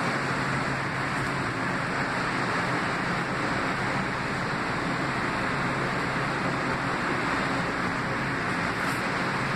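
Metro-North M8 electric multiple-unit train rolling past along the platform: a steady rumble and rush of wheels on rail with a low, even motor hum underneath.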